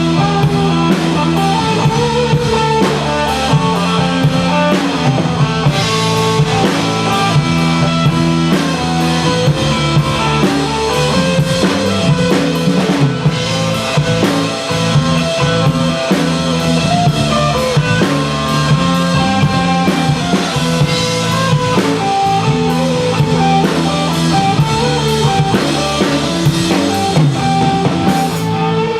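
Rock band playing live in an instrumental passage: drum kit keeping a steady beat under electric guitar and bass, with no vocals.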